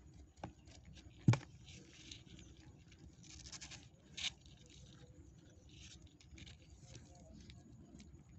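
Newborn kittens nursing at their mother: faint snuffling, suckling and rustling noises, with one sharp click a little over a second in and a brief louder hiss about four seconds in.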